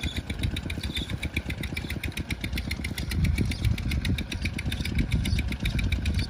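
Motorcycle engine idling steadily with a rapid, even putter, growing a little louder about three seconds in.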